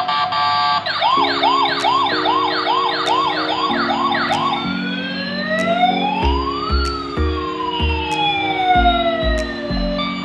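Electronic police siren of a toy police car: a fast repeating whoop, about two or three a second, then slow rising and falling wails. Background music with a steady beat plays underneath.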